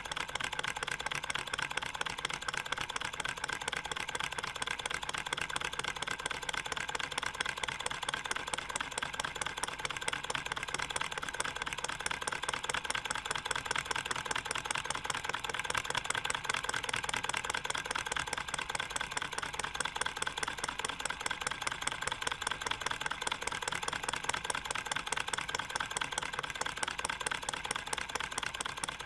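All-metal model Stirling engine of aluminium alloy and stainless steel running steadily, its small pistons and rods making a rapid, even metallic ticking rattle.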